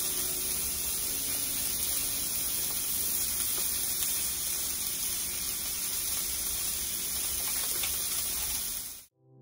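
Steak sizzling in a ridged grill pan, with a pat of butter melting on top: a steady frying hiss that cuts off suddenly near the end.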